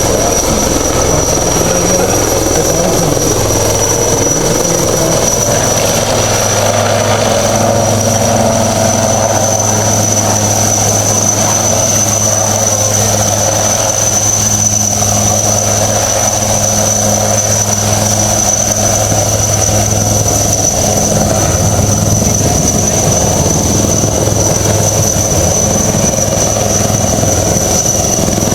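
Military helicopter running steadily through a team extraction, a constant drone of rotor and engine with a steady high whine above it.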